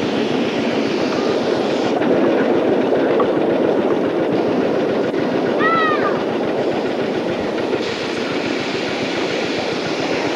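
Ride-on miniature live-steam trains running past, their wheels clattering steadily on the track. A short whistle toot, rising and then falling in pitch, sounds about six seconds in.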